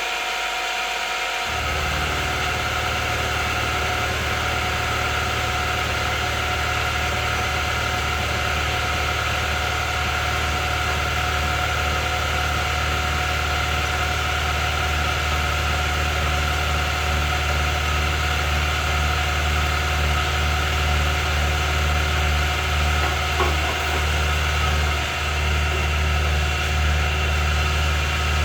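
Grizzly G0519 milling machine running steadily during a face-milling pass, its motor and spindle giving a steady whine over a hum. A deeper hum joins about a second and a half in and then holds.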